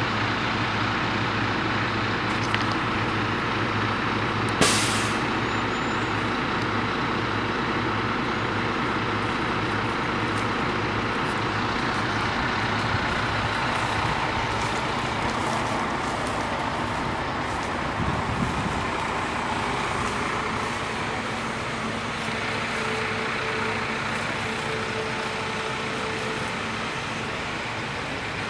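Crane's diesel engine running steadily with an even low throb, and a short sharp hiss of released air about four and a half seconds in.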